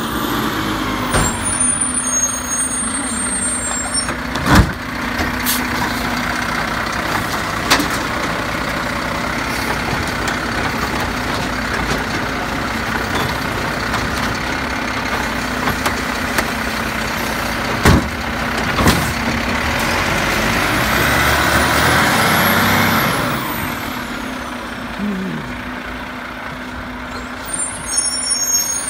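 Automated side-loader garbage truck running as its hydraulic arm lifts a wheeled recycling cart and dumps it into the hopper, with a few sharp bangs as the cart is shaken out, two of them close together past the middle. The engine runs louder for a couple of seconds after that.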